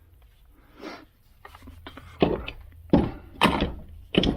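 A few short, irregular scraping and rubbing noises as a trimmed part is handled and worked over by hand.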